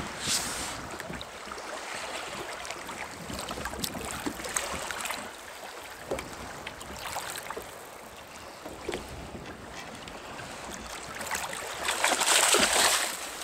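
Choppy sea water slapping and splashing against a kayak hull, with wind on the microphone and scattered small drips and ticks. There is a louder rush of splashing about twelve seconds in.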